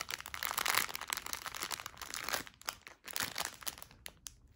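Plastic packets of diamond-painting drills crinkling and crackling as a bundle of them is handled and turned over, busiest in the first two and a half seconds, then fainter.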